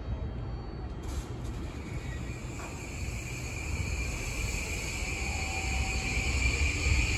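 JR Kyushu 821 series electric train pulling into the platform, its low rumble and a high hiss growing steadily louder as it approaches.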